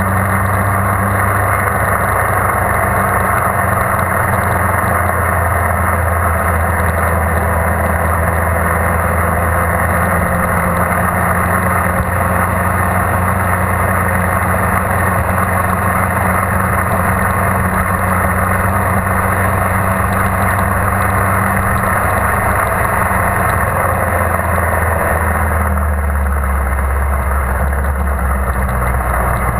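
Onboard sound of a 2001 Yamaha R1's inline-four engine at speed, with heavy wind rush over the camera. Near the end the wind noise eases and the engine note drops as the bike slows.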